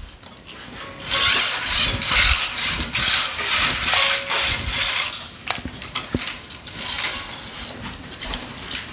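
Hands working a racket on a stringing machine: the turntable being swung round while the polyester string rustles and swishes against the frame, with a few light knocks.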